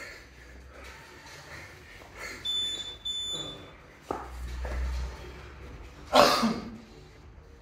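Hard, rapid breathing at the end of a long kettlebell snatch set, about a breath a second. Two short high-pitched electronic beeps come about halfway through. A knock with a low rumble follows as the bell swings. Near the end a loud, sharp exhale comes as the 28 kg kettlebell is lowered to the floor.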